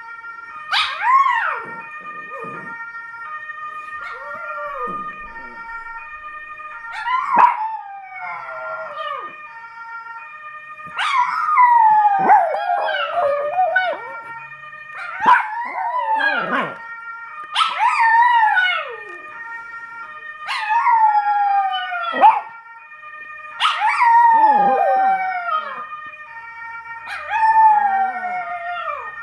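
Russian Toy Terriers howling along to a fire siren: a series of long howls, each falling in pitch, over the siren's steady repeating tones.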